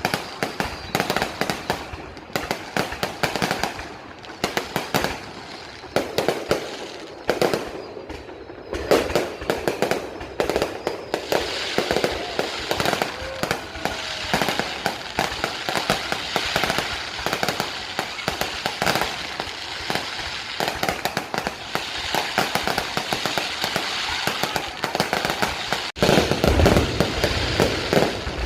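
Aerial fireworks going off in a long run of sharp bangs, growing denser into a continuous crackle, and louder near the end.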